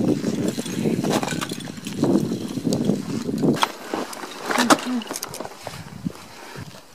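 Ice climber's ice tools and crampons striking steep waterfall ice in irregular blows, with a brief muffled voice about two-thirds of the way in.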